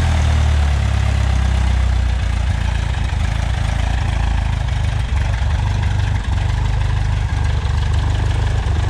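Freshly overhauled light-aircraft piston engine and propeller running steadily on the ground on its electronic ignition (E-mag), after firing first time. The low engine note settles slightly in the first couple of seconds, then holds steady.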